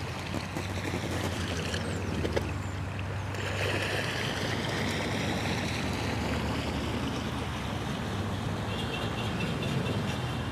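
Steady rush of flowing river water, with a low rumble of wind on the microphone.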